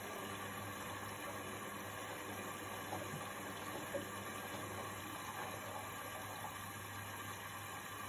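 Indesit front-loading washing machine running: a steady hiss over a low hum, with a couple of faint knocks about three and four seconds in.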